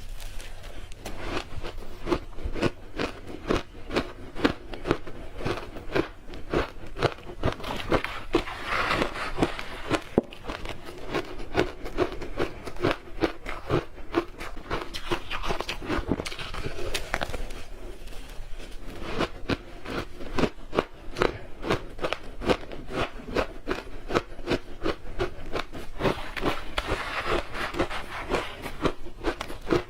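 Ice being bitten and chewed in the mouth: a run of sharp crunches several times a second, easing briefly about two-thirds of the way through.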